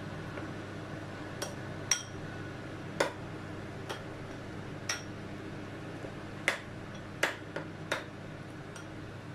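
Metal spoon clinking against a porcelain bowl while mashing soft boiled sweet dates and figs: about ten sharp, irregularly spaced clinks over a steady low hum.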